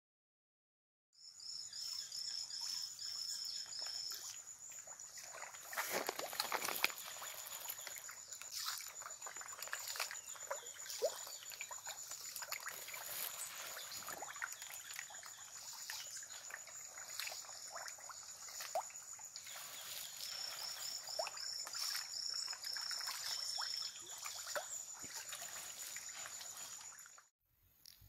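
Water trickling and splashing, with a steady high insect drone over it. Twice, a quick run of repeated high chirping notes from a small animal calls through.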